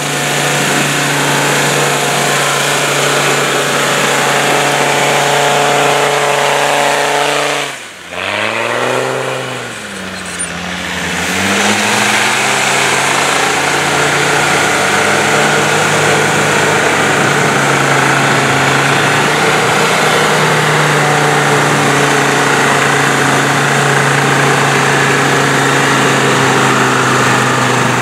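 Land Rover Discovery TD5 five-cylinder turbo-diesel engine running hard under load in deep snow, wheels spinning. About eight seconds in the engine note drops sharply and briefly quietens, then rises again and holds a steady high run.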